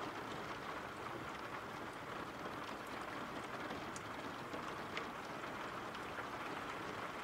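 Steady rain falling as a soft, even hiss, with a few separate drop taps standing out now and then.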